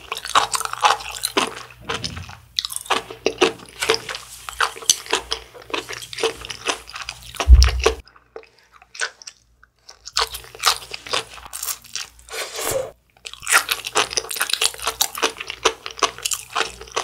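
Close-miked eating: dense crunchy chewing, with one low thump about seven and a half seconds in. After a short pause, more crunching as sea grapes pop between the teeth.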